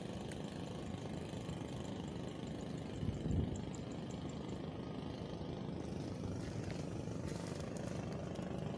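A small engine running steadily at idle, a low even hum, with a brief louder low swell about three seconds in.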